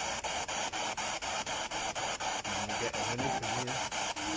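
Spirit box, a radio scanning rapidly through stations, running as steady static chopped into even pulses several times a second, with brief garbled fragments of sound a little past halfway.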